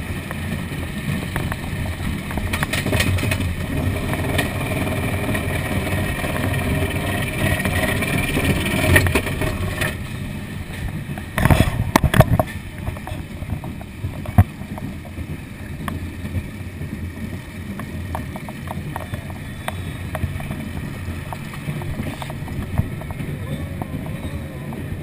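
Small family roller coaster car running along its steel track: a steady rumble and rush, louder for the first ten seconds and quieter after, with a brief clatter of loud knocks about halfway through.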